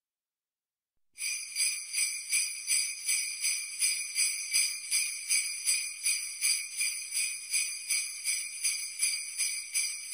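Sleigh bells shaken in a steady rhythm, about three shakes a second, starting about a second in after silence.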